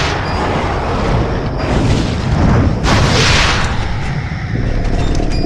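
Deep booming impacts over a continuous low rumble, two big hits about a second apart near the middle: sound-designed footsteps of a giant monster.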